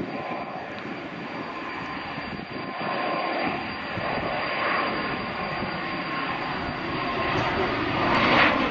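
A Gulfstream business jet's twin turbofan engines climbing out overhead after takeoff: a steady jet roar with a thin whine on top, growing somewhat louder about three seconds in. A brief louder rush comes near the end.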